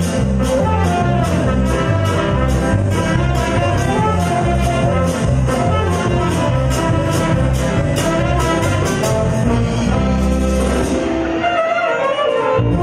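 Live Latin band playing, with saxophone and trumpet lines over keyboard, electric guitar, bass and a drum kit keeping a steady beat. Near the end the drums and bass drop out briefly, leaving a melodic line, before the full band returns.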